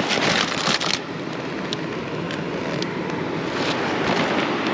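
Steady wind on the microphone and surf on the beach, with a burst of rustling and crinkling in the first second as a soft cooler bag is pulled open and plastic bags inside are handled.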